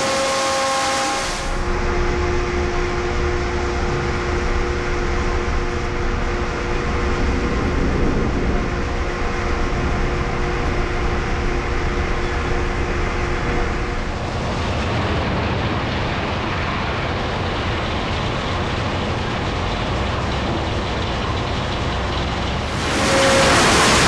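Commercial sawmill machinery running with a steady mechanical rumble, carrying two steady hums through the first half. Most of it is heard muffled through the glass of the sawyer's control booth; near the end it turns brighter and louder.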